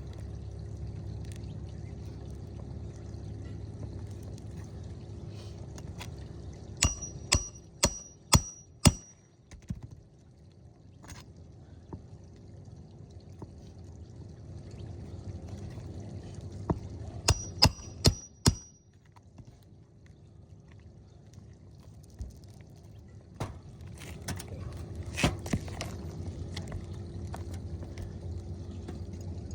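Hammer striking a roof snake, the metal bar that drives roofing nails under an overlying shingle: two quick runs of about five sharp metallic strikes, each with a brief ring, then a few lighter knocks near the end.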